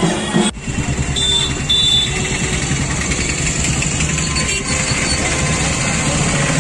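Music breaks off abruptly about half a second in, giving way to the steady din of a busy festival street with motor traffic. Two short high beeps sound between about one and two seconds in.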